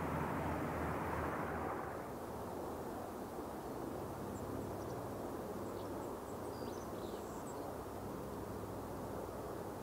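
Several WWII piston-engine fighters flying past in formation, a steady engine drone. It is louder for the first two seconds, then drops to a fainter, more distant drone.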